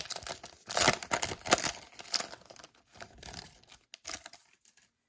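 A hockey card pack's wrapper being torn open and crinkled, with loud crackling rips in the first couple of seconds that thin out and die down after about four seconds.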